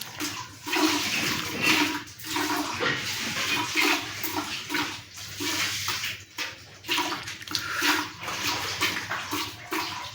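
A cow being milked: milk squirting into a container in short rhythmic strokes, about two a second.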